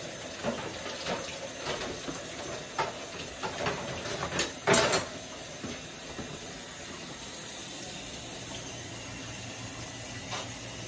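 Cooking utensil knocking and scraping against a metal pot a few times, with a louder clatter about five seconds in, over a steady hiss from the steaming seafood-boil pot.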